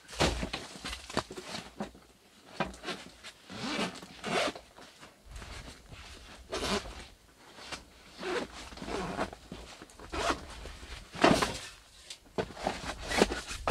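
Zipper of a soft tackle bag being pulled open around its lid, with rustling of the bag's fabric and irregular light knocks as it is handled on a table.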